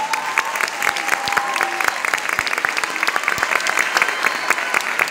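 An audience applauding, many hands clapping densely and steadily.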